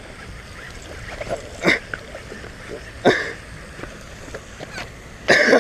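Steady hiss of wind and the pond's spray fountain, broken by a few short splashes as a hooked largemouth bass thrashes at the surface by the bank while it is landed by hand. The loudest splash comes just before the end.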